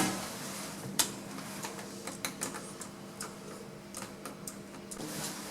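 Irregular light clicks and taps, a sharper one about a second in, over a steady low hum.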